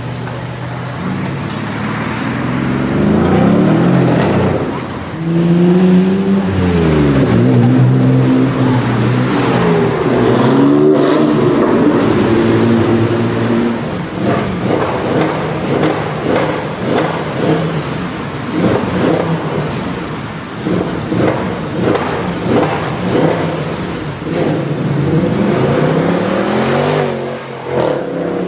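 High-performance car engine accelerating hard, its pitch climbing and dropping through several gear changes, with a long stretch of sharp exhaust crackles and pops in the middle.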